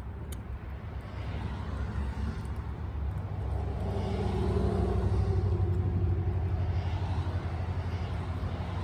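A motor vehicle passing by: a low engine rumble that swells about halfway through and then fades.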